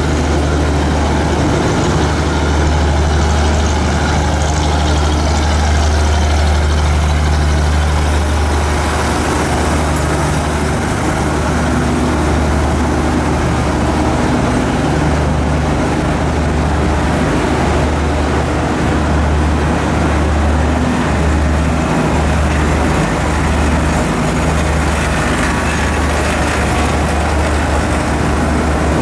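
Heavy diesel engine of a Thai express train running steadily, a deep even hum with no change in pitch.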